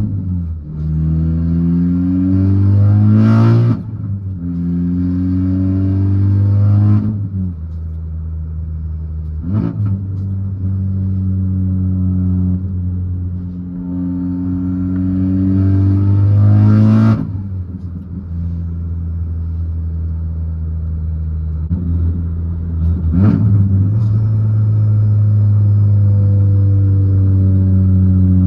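Tuned Golf R's turbocharged four-cylinder, fitted with a GT2260S turbo, catless downpipe and single-exit exhaust, pulling up through the revs in repeated accelerations. Each pull ends in a short sharp burst of noise at the shift or lift-off, four times.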